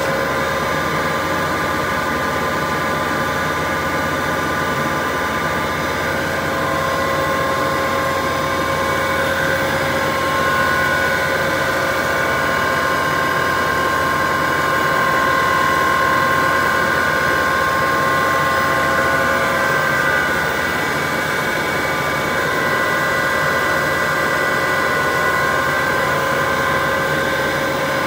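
HDPE pipe extrusion line machinery running: a steady mechanical drone with several held whining tones from its motors.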